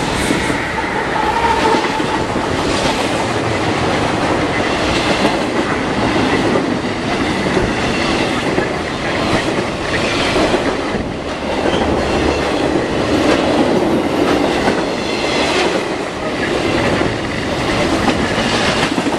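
CSX freight train of double-stack intermodal container cars passing close by, with a steady rumble and the rhythmic clickety-clack of its wheels over the rails.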